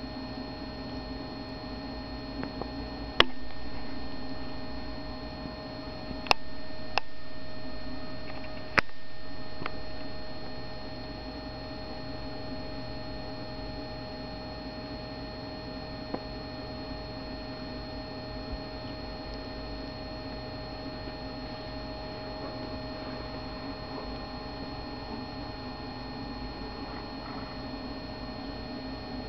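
Steady electrical hum with a few fixed tones, broken by four sharp clicks in the first nine seconds.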